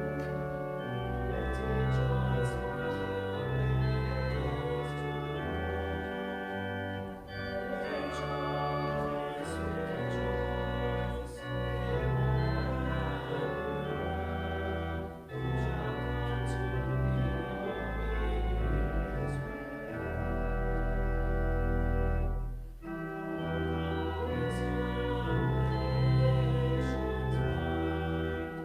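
Church organ playing a hymn in held chords, with short breaks between phrases.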